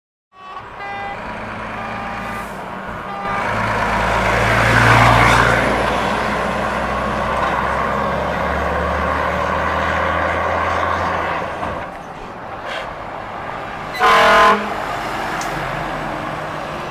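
Volvo truck with an open exhaust pipe running with a deep engine note that swells about three seconds in and falls away near eleven seconds. About fourteen seconds in, a short, loud horn blast sounds, the loudest moment.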